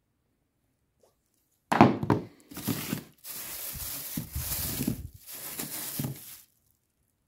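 Clear plastic bag crinkling and rustling in bursts as a hand pulls a bagged spare part out of a cardboard box, starting with a sharp knock about two seconds in.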